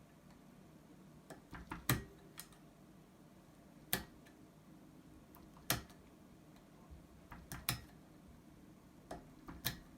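Scattered sharp clicks and taps of a small screwdriver working on a plastic RJ45 jack, pressing its contacts up, in small groups a second or two apart.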